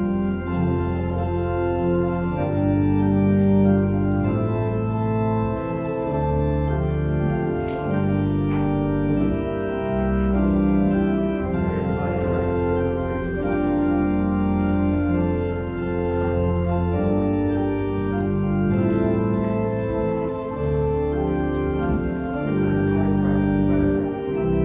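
Organ playing slow music of long held chords over a sustained bass, the chords changing every second or two.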